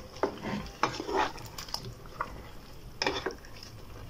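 Wooden spoon stirring chunks of matoke, beef and tomatoes in a stainless steel pot, with irregular knocks and scrapes of the spoon and food against the pot.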